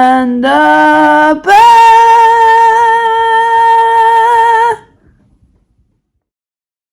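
A singing voice holding the closing notes of a song: two short notes, then one long held note about a second and a half in, which stops abruptly near five seconds in.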